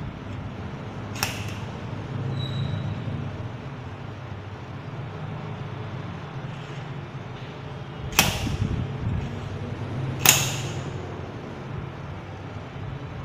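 Expandable metal baton being handled: a sharp click about a second in, then two swishing metallic snaps about two seconds apart near the end as its telescoping sections slide and lock.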